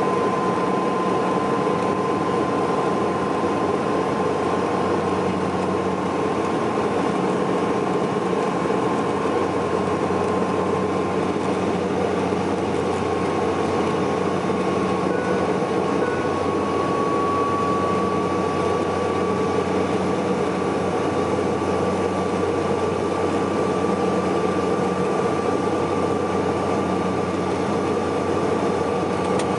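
Cabin noise of a Saab 340B twin turboprop on its descent to land: its General Electric CT7 turboprop engines and propellers make a steady drone, heard from inside the cabin. A high whine over the drone rises slightly in pitch about halfway through.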